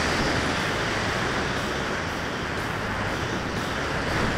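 Steady rushing wind noise on the onboard camera of a radio-control model jet in flight, with no engine note heard: the model is gliding dead-stick, its fuel run out.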